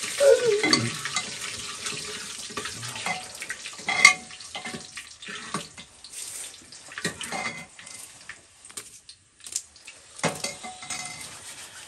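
A metal spoon stirring whole spices in a metal pot on a gas stove, with irregular scrapes and clinks against the pot's sides, the sharpest about four seconds in and about ten seconds in.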